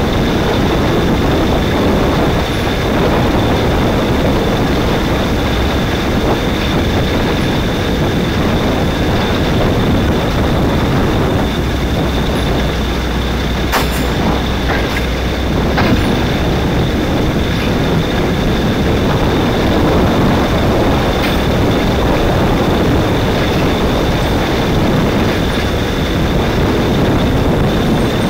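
Ninja kart running at racing speed, heard from a camera mounted on the kart: a dense, steady mechanical rumble with road and spray noise and a thin high whine held throughout. A couple of sharp clicks come about halfway through.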